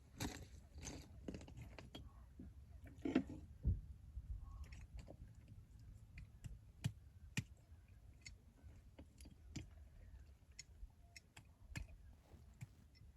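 Someone eating close to the microphone: chewing with scattered small clicks and crackles, and a couple of louder knocks about three seconds in.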